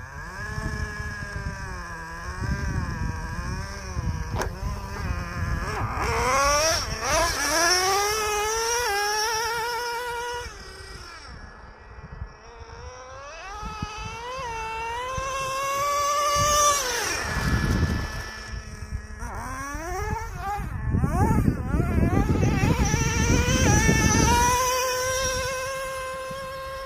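Small nitro glow engine of a Traxxas Nitro Slayer 1:8 RC truck at high revs, its whining pitch climbing and dropping again and again as the throttle is opened and released. It grows louder and fades several times, loudest about eight, sixteen and twenty-three seconds in.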